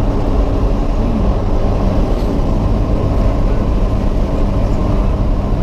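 Truck running along the road: a steady low rumble of engine and road noise.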